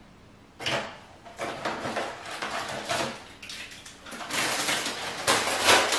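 Rustling and crinkling of a plastic packet being handled, in repeated short noisy bursts that begin about half a second in and grow louder toward the end.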